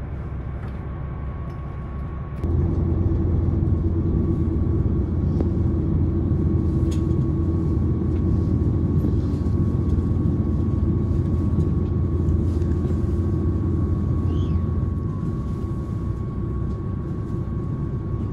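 Running noise of a KiHa 261 series diesel limited express train heard inside the carriage: a steady rumble of engine and wheels that gets suddenly louder and deeper about two and a half seconds in, with a faint steady high tone above it.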